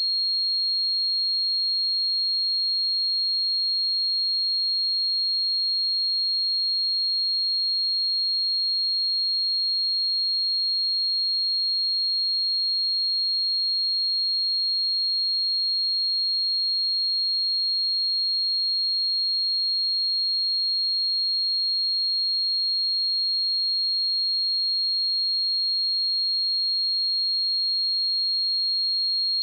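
A steady 4262 Hz sine-wave test tone, a single high-pitched pure tone held at constant level.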